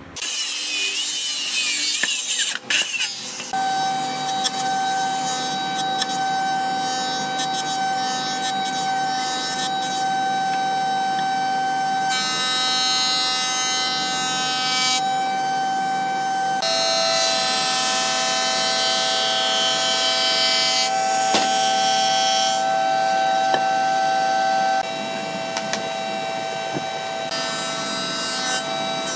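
Woodworking jointer-planer running with a steady whine while a heavy hardwood board is fed over its cutterhead. The hissing cutting noise comes and goes with each pass. It starts after a short, rougher burst of another power tool in the first few seconds.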